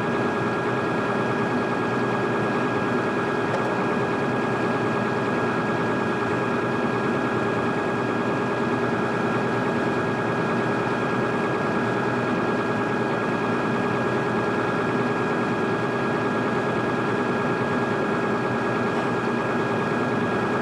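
Steady, unbroken machine running sound with several constant tones, from welding work on the excavator bucket.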